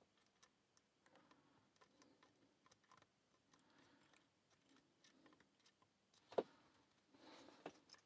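Faint, irregular metallic ticking of a homemade bobby-pin pick and tension wrench working the pins of a lock's keyway during single-pin picking. One sharper click comes about six seconds in, followed by a brief rustle with another click near the end.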